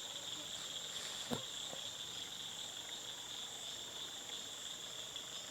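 Steady night chorus of crickets or other insects, one continuous high trill. There is a single short knock about a second in.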